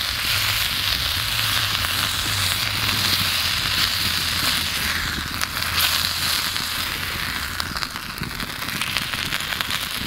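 Beans and wieners sizzling in a cast iron skillet over a campfire, a spatula stirring them now and then. The sizzle eases somewhat after about five seconds.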